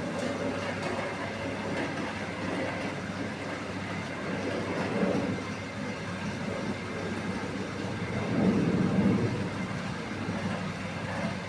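Rotary cutting-roll machine running steadily as it cuts cardboard box blanks, growing louder for a moment about five seconds in and again for about a second near eight and a half seconds in.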